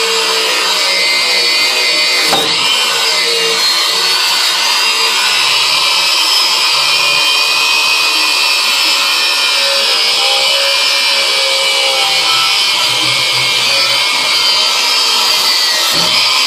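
Grinder running steadily against a steel lawn mower blade, sharpening the edge with a loud, high-pitched grinding whine.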